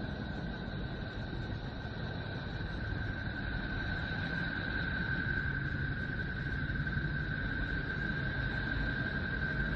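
A 'sound of a planet' space recording: a steady low rumble and hiss with a sustained high-pitched tone held over it and a fainter, higher tone above that, swelling slightly louder after the middle.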